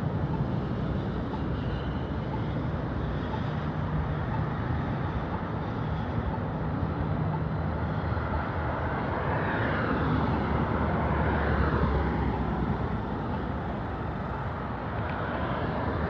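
Road traffic at a busy intersection: cars running and passing in a steady wash of engine and tyre noise, with one vehicle passing louder about ten seconds in.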